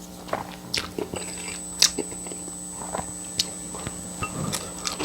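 A person chewing and eating, with scattered sharp wet mouth clicks over a faint steady hum.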